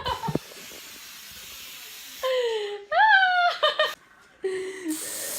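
A steady hiss for about two seconds, like an aerosol spray can, then a person's voice in several short, loud cries that rise and fall in pitch, the loudest about three seconds in.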